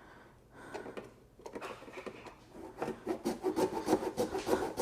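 Hand saw cutting through a pit bike's fuel tank: a few faint, scattered scrapes, then from about three seconds in quick, even back-and-forth strokes, several a second.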